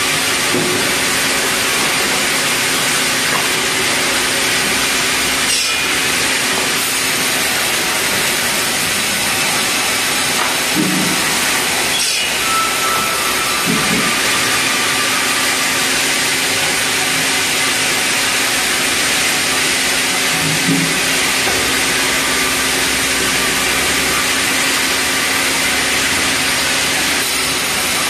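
Large sawmill band saw running steadily as red meranti timber is fed through it, a constant hum under an even hiss.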